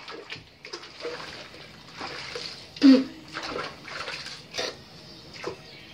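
Bathwater splashing and sloshing in a bubble bath as a child slaps and stirs it with her hands, in irregular bursts, the loudest about three seconds in.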